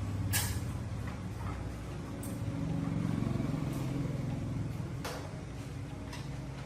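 An engine running steadily, growing a little louder around the middle, with a few sharp clicks or knocks over it.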